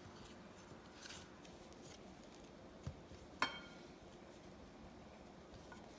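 Faint rubbing and scuffing of hands pressing flour onto a pork cutlet on a ceramic plate, with one light clink against the plate about three and a half seconds in.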